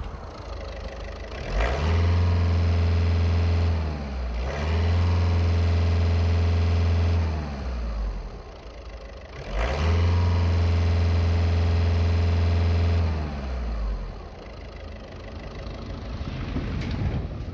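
VW Passat B7's 1.6 TDI (CAYC) four-cylinder common-rail diesel engine, heard with the bonnet open, revved up and held at raised revs three times for a few seconds each, dropping back between the runs and settling to idle near the end.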